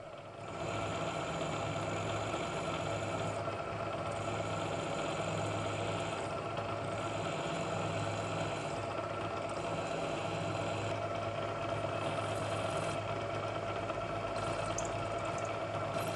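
Machine tool running steadily with a low hum while the four mounting holes are drilled and tapped; the cutting sound in the upper range changes every second or two.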